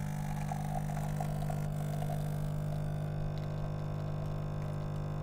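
Coffee machine's pump humming steadily while it dispenses coffee into a mug.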